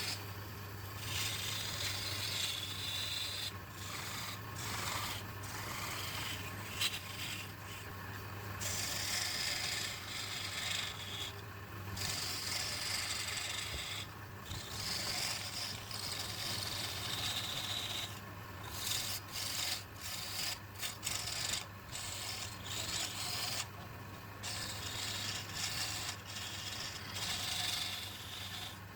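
Woodturning lathe with a steady motor hum, and a rubbing hiss from something held against the spinning wood. The hiss comes and goes with many short breaks.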